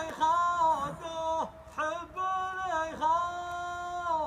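Slow song sung in long held notes, several in a row, each note sliding in and out of pitch at its ends.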